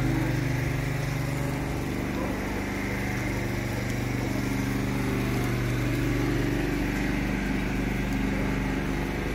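A motor running steadily at constant speed, a low even hum that does not change in pitch.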